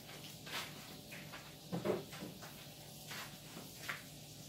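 Scattered light clicks and knocks of kitchen handling, with one slightly louder knock about two seconds in, over a low steady hum.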